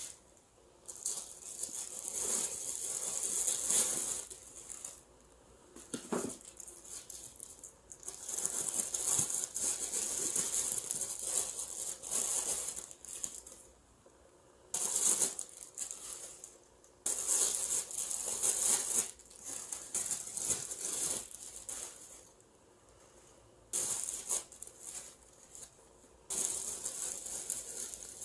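Thin tissue paper rustling and crinkling in repeated bursts of a few seconds each as it is pulled off and unwrapped from wooden blocks, with quieter pauses between.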